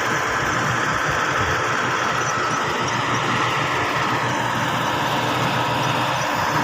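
Engine of a Schwing 42 m truck-mounted concrete pump running steadily.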